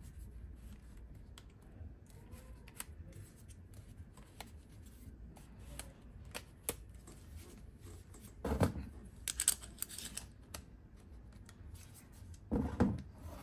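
Hands handling a mirrorless camera body and its kit zoom lens: scattered light clicks and rubbing, with two louder rustling bumps, one about eight and a half seconds in and one near the end.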